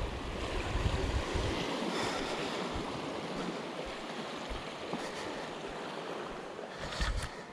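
Small sea waves washing against shoreline rocks, a steady surf wash, with gusts of wind rumbling on the microphone about a second in and again near the end, where a few sharp clicks are also heard.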